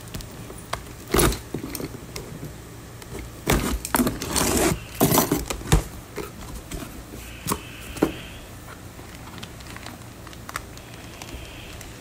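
A cardboard shipping box being opened by hand: packing tape and plastic wrap torn and crinkled, flaps pulled open, with keys jingling. The handling comes in irregular bursts, busiest in the middle, then thins out to a few single knocks.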